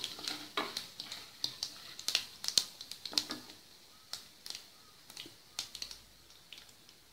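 Mustard seeds and dal spluttering in hot oil for a tempering: scattered sharp crackles and pops, frequent at first and thinning out toward the end.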